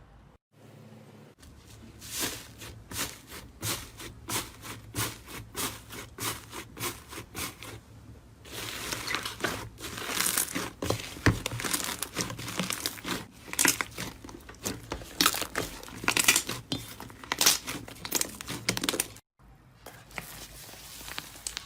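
Slime being pressed and pulled by hand, making crinkly crackling sounds. First comes a run of separate sharp clicks, about two to three a second. Then a denser crackling with louder snaps, cut off abruptly near the end.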